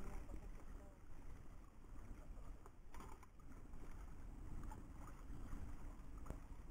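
Wind and sea noise around a small outrigger fishing boat, a steady low rumble, with a few faint clicks as the handline is hauled in.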